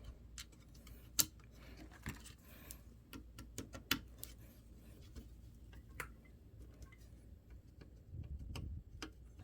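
Scattered small sharp clicks and taps of laptop parts being handled and fitted together by hand, over a faint low hum.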